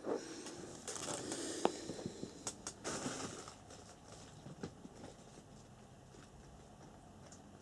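Scattered rustling, light clicks and taps of hands handling small parts and plastic packaging, busiest in the first three seconds and then dying away to faint room noise.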